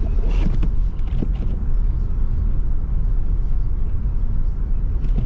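Steady low rumble of a vehicle driving slowly on a snowy, slushy road, heard from inside the car.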